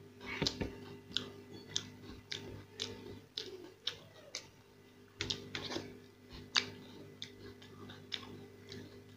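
Close-miked eating sounds: a man chewing with his mouth open, making irregular wet lip smacks and mouth clicks about twice a second, over a steady low hum.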